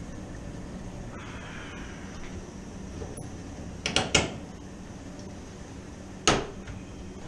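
A few sharp clacks in quick succession and then one louder knock, as of a metal panel or door being handled, over a steady low mechanical hum.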